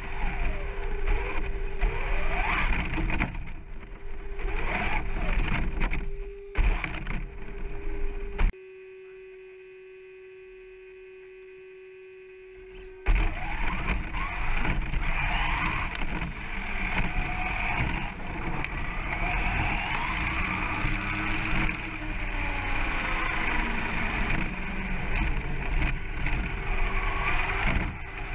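Brushless motor of a 1/10 RC short course truck whining up and down in pitch with the throttle, over tyre and gravel noise, heard from a camera mounted on the truck. About eight seconds in, the truck stops and only a steady hum is left for about four seconds. Then it pulls away again and runs on.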